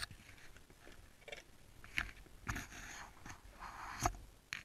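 Faint scraping and rustling as hands handle a motorcycle's plastic tail bodywork, with a few sharp clicks.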